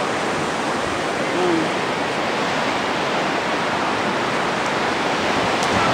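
Steady wash of sea surf on a sandy beach, an even rushing noise with no breaks.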